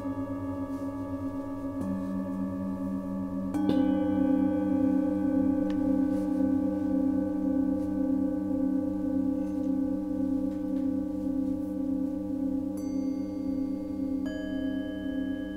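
Metal singing bowls struck one after another every few seconds. Their tones ring on and overlap with a slow wavering, with the loudest strike about three and a half seconds in and higher-pitched bowls added near the end.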